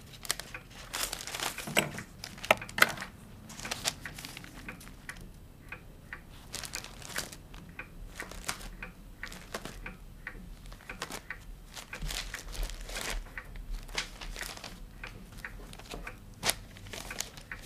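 Paper rustling and crinkling with scattered small clicks and ticks, as scrapbook pages and clippings are handled.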